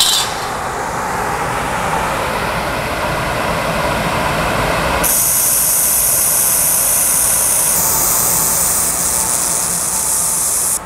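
Steady fan-like noise, then about five seconds in a loud, high hiss starts abruptly as a handheld 1000 W fiber laser welder with wire feed fires and runs a weld, throwing sparks, until the sound cuts off at the end.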